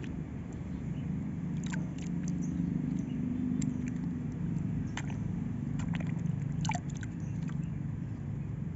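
Small splashes and wet squelches of a toy car being dunked and moved by hand in a tub of thin mud, with a few sharp clicks from the plastic toy, over a steady low rumble.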